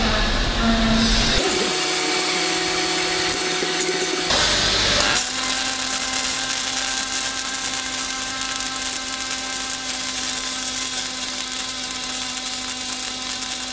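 Fronius TPS 400i MIG/MAG welding arc in synergic spray transfer: a steady hiss over a constant hum from the machine's pulsing. The tone changes twice, the second time about five seconds in, after which a steady low hum holds.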